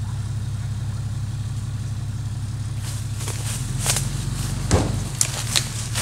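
Cummins diesel truck engine running steadily as it pulls on the tree rope. From about three and a half seconds its note drops, and several sharp cracks and snaps follow as the pull gives way.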